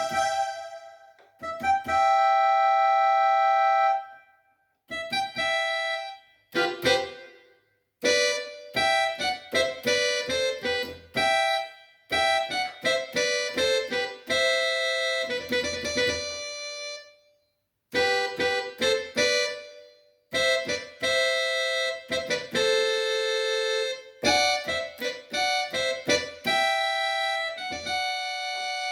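Yamaha PSR-530 electronic keyboard playing short melodic phrases and held notes in its built-in voices, piano-like and reedy, each phrase stopping briefly before the next.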